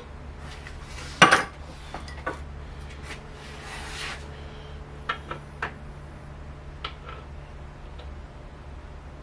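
Metal clinks and knocks of parts and tools being handled in a car's engine bay: one louder clatter about a second in, then a few light, separate clicks.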